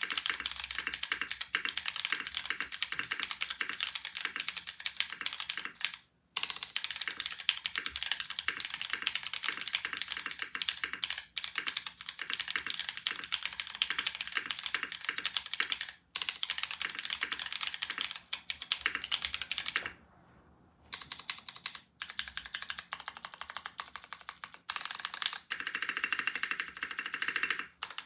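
Typing on a Ryujin TKL mechanical keyboard with lubed Cherry MX Brown Hyperglide tactile switches, a polycarbonate plate and DCS keycaps: a fast, steady stream of keystrokes with a few brief pauses, the longest about two-thirds of the way through.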